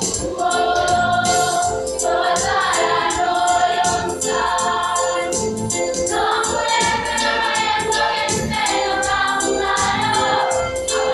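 Choir of secondary-school students singing a song together, held notes moving every second or two over a steady beat.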